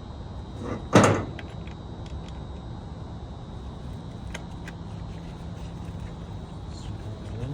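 A single loud clunk about a second in, over a steady low hum with a few faint ticks.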